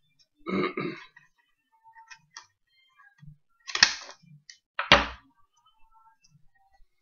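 Scissors cutting into a folded paper boat, with paper rustling and two sharp clicks about a second apart past the middle, the second with a dull knock.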